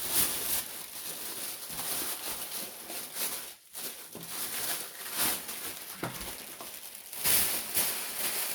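Tissue paper rustling and crinkling in irregular bursts as a parcel is unwrapped by hand, with the loudest crinkles about three-quarters of the way through.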